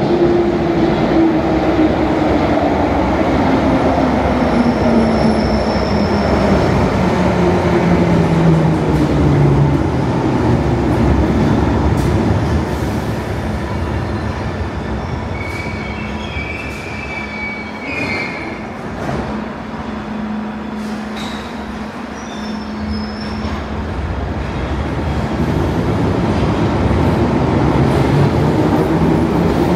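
London Underground tube train running, with the traction motor whine falling steadily in pitch over the first ten seconds as it slows. Short high wheel squeals come in the middle. The whine rises again near the end as the train picks up speed.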